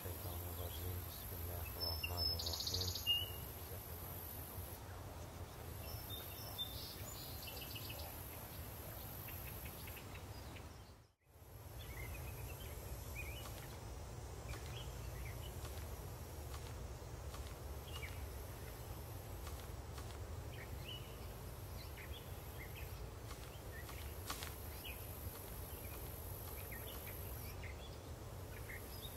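Outdoor ambience: scattered bird chirps over a steady low rumble and an even high hiss. The sound drops out briefly about eleven seconds in.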